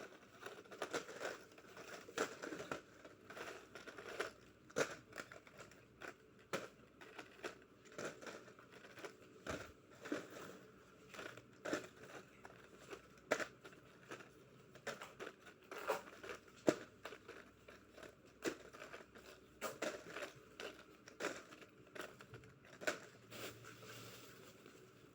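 Plastic packaging crinkling, with irregular small clicks and crackles as small plastic items are handled.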